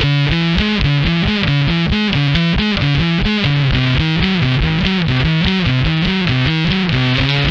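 Homemade Rickenbacker-style electric bass played through distortion, a fast run of notes jumping back and forth between higher and lower pitches.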